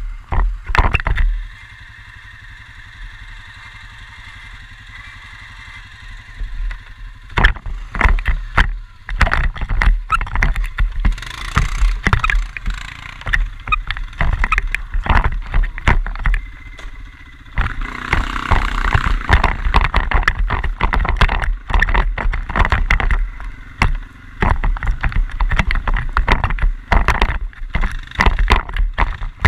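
Quad bike (ATV) engine running. It is fairly steady for the first several seconds, then from about seven seconds in it is broken by many sharp knocks and rattles, with the loudness jumping up and down.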